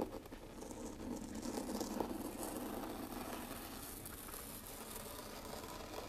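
Fine model-railroad ballast trickling and pattering from a tapped metal teaspoon onto N scale track: a steady granular rattle, with a sharper tick at the start and another about two seconds in.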